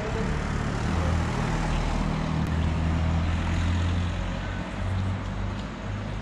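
Low, steady engine drone, loudest in the first few seconds and easing off after about four seconds.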